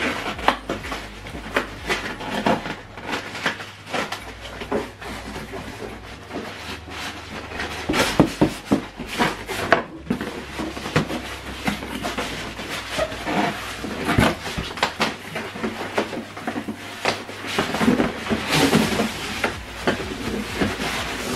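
Cardboard box being handled during unboxing: irregular knocks, scrapes and rustles as the box flaps are folded back and the packed contents are moved about, over a steady low hum.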